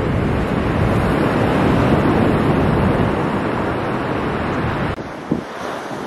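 Jet airliner on landing approach, its engines giving a steady roar that swells and eases. The roar cuts off abruptly about five seconds in, giving way to wind gusting on the microphone.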